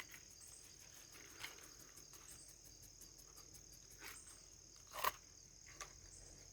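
Crickets trilling steadily at a high pitch. A few faint clicks and knocks come through, the loudest about five seconds in.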